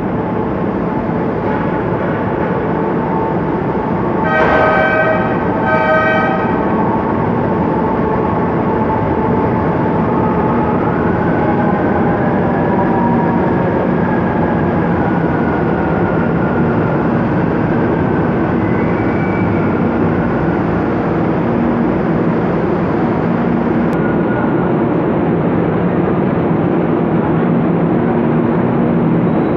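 MRT Line 3 light-rail trains running through the station, with steady rumbling of wheels on rails as two trains meet. A train horn gives two short toots about four and six seconds in, and a faint whine later rises and falls in pitch as the trains move.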